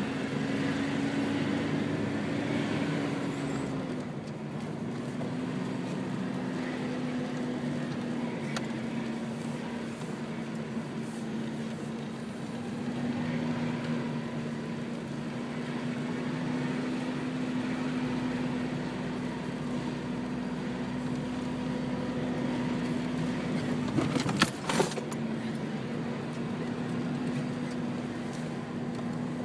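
Toyota 4Runner heard from inside the cab while driving slowly along a dirt trail, its engine a steady hum that drops slightly in pitch about four seconds in. A brief clatter of sharp knocks comes about three-quarters of the way through.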